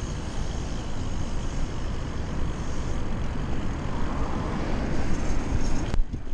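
Wind rushing over a bike-mounted camera's microphone while riding a BMX bike alongside road traffic: a steady noise with a heavy low rumble. A brief dropout comes near the end.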